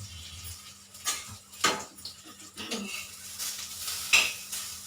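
Metal kitchen utensils and dishes clinking and knocking: a few sharp clinks, the loudest near the end, over a faint hiss of frying.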